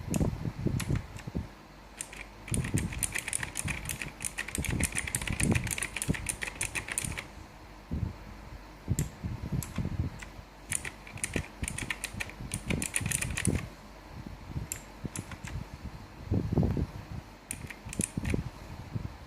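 K29 mechanical keyboard with blue switches being typed on: two fast runs of clicky keystrokes, with scattered single key presses and low thuds between them.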